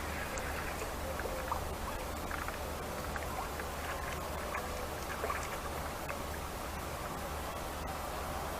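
Steady outdoor background noise with a low hum underneath and many faint short chirps scattered through it.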